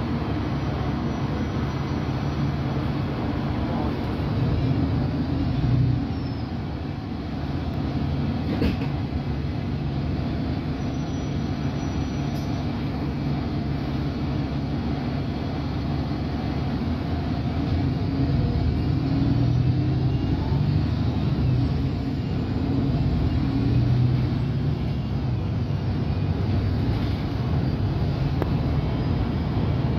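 Inside an Alexander Dennis Enviro200 MMC single-deck diesel bus on the move: steady engine and road rumble, growing louder for a few seconds around twenty seconds in. A single sharp click sounds about nine seconds in.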